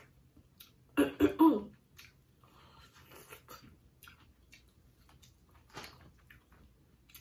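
Eating sounds: soft chewing and small wet mouth clicks from a mouthful of sauce-coated seafood boil, with one short, loud vocal burst in three quick pulses about a second in, cough-like.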